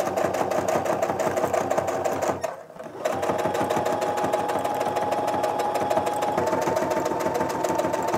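Baby Lock domestic sewing machine stitching at a steady speed, the needle going up and down rapidly while a quilt sandwich is guided along a ruler. It stops for about half a second about two and a half seconds in, then runs again, its motor pitch stepping up slightly near two thirds of the way through.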